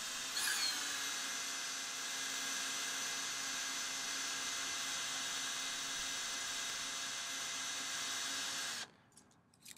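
Cordless drill spinning a small diamond hole saw into wet brick: a steady whine with a grinding hiss. Its pitch drops briefly just after the start, and it stops abruptly near the end.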